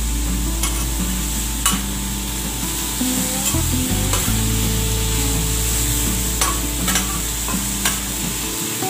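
Chicken pieces sizzling on a hot flat steel griddle while a metal spatula scrapes across the plate to turn and gather them, with several sharp scraping clicks along the way.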